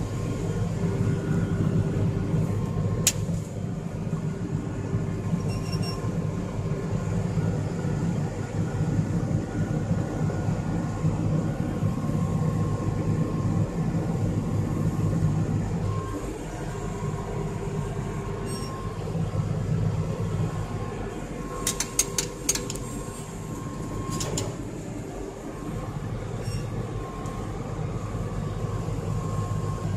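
Case IH Magnum 7140 tractor's six-cylinder diesel engine running steadily under load, heard from inside the cab as it tows a bale wagon. A few sharp clicks or rattles come once early on and in a quick cluster about three-quarters of the way through.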